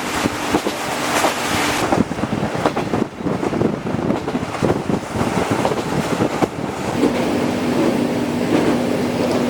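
Running noise inside a locomotive-hauled passenger coach: the rumble of wheels on the rails with irregular clacks and knocks over rail joints. A steady hum drops out about two seconds in and comes back after about seven seconds.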